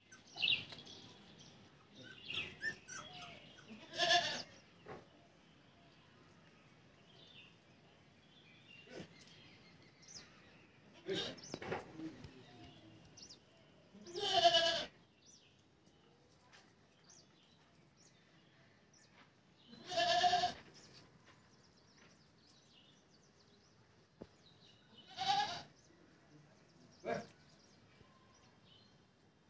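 Labrador puppies whining and yelping: short, high, pitched cries about half a second long, several seconds apart, with fainter squeaks between them.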